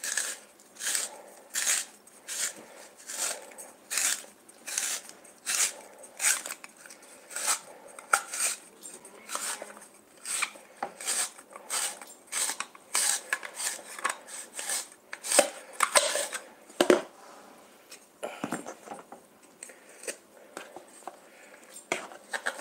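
Tupperware Spiraliseur Junior, a hand-held pencil-sharpener-style spiralizer, shaving a courgette into ribbons: a crisp cutting scrape with each twist, about two a second. Near three-quarters through the strokes pause for a few knocks of the plastic parts, then carry on.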